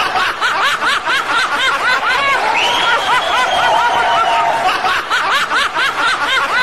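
High-pitched laughter: a rapid string of rising-and-falling "ha" sounds, about three or four a second, broken in the middle by one long held note before the laughing resumes.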